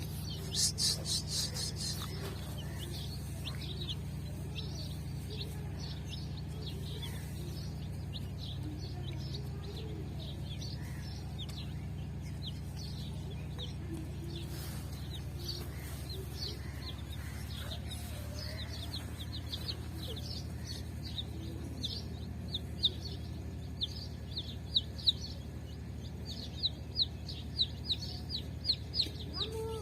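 Domestic chicks peeping: short, high-pitched downward chirps, some in quick runs, growing denser and louder in the second half. A steady low hum runs underneath.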